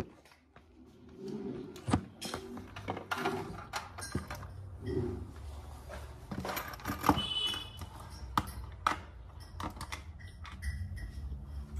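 Small hard objects handled on a countertop: a run of irregular clicks, taps and light clinks as a hearing aid is taken out and readied, with a short high tone about seven seconds in.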